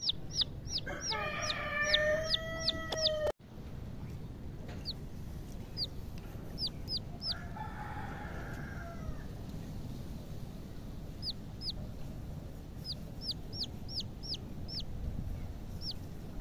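Country chicken chicks peeping: short, high, falling cheeps in quick runs. Under them, a longer, lower call from a grown chicken runs for about two seconds near the start and comes again more faintly around the middle.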